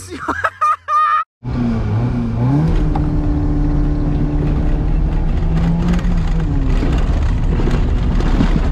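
Fiat Uno's engine heard from inside the cabin, climbing in pitch as it accelerates about a second and a half in, then running at fairly steady revs while driving over the sand track.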